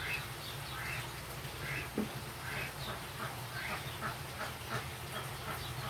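Ducks quacking repeatedly in short calls, with one knock about two seconds in, over a steady low hum.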